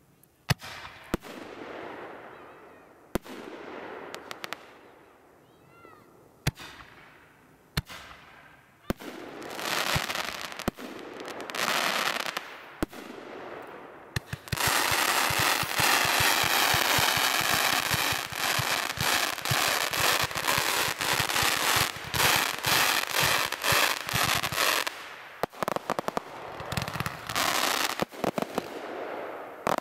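Fireworks display: sharp bangs of aerial shells bursting, each trailing off in a fading hiss and crackle. About halfway through comes a dense, loud run of crackling with rapid pops lasting about ten seconds, and separate bangs return near the end.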